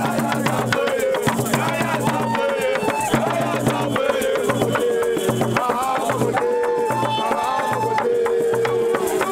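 Music with a sung melody of held notes over a repeating bass line and dense, rattling percussion.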